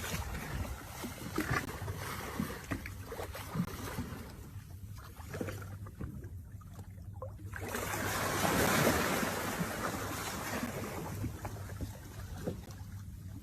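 A boat under way on open sea: wind and water rushing past, with a steady low hum beneath and a few small knocks. The wash dies down for a few seconds around the middle, then swells again.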